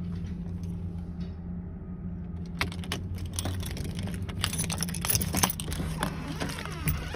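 A steady low hum, then from about two and a half seconds in, rapid metallic jingling and clicking that keeps going.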